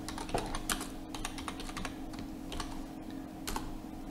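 Typing on a computer keyboard: a run of short, irregularly spaced key clicks as a short phrase is typed.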